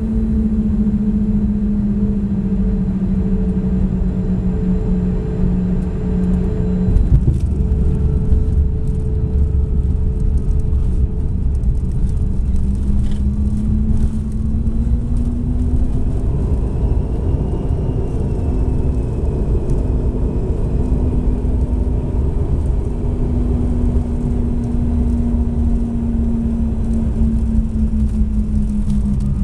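Cabin noise of a Bombardier CRJ landing: the steady hum of its rear-mounted turbofan engines, sinking, then rising, then sinking again in pitch. About seven seconds in, a heavier rumble and rattling sets in as the wheels touch down and roll on the runway.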